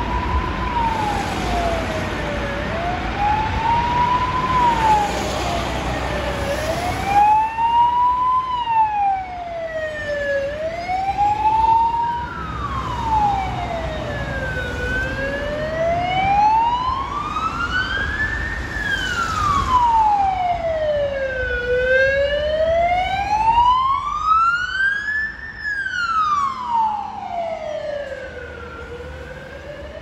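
Fire engine's siren wailing, one tone sweeping slowly up and down. The sweeps get slower and wider in pitch about halfway through. Passing road traffic can be heard under it.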